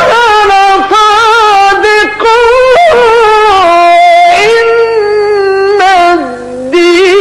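A man reciting Qur'an verses in the melodic Egyptian mujawwad style: long, ornamented held notes with a wavering vibrato and short breaks for breath. About six seconds in, the voice settles on a lower held note.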